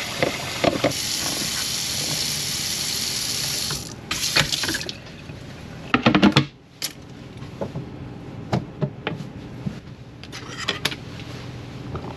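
Sink faucet running into a sink full of dishes, shut off about four seconds in, followed by scattered knocks and clinks of dishes being washed.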